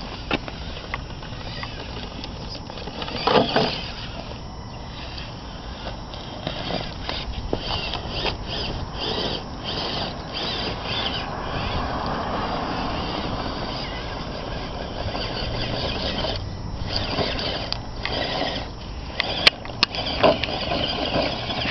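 Tamiya Land Cruiser electric RC rock crawler running slowly over rocks: its small motor and gears whine while the tyres and chassis scrape and knock on the stones, with a louder clatter a few seconds in.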